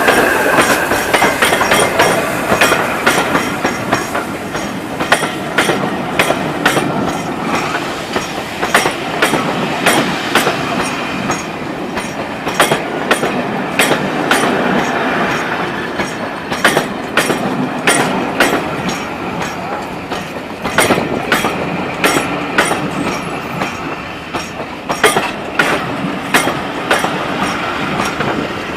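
A steam-hauled passenger train rolling slowly into a station: coach wheels clicking irregularly over rail joints and pointwork as the carriages pass.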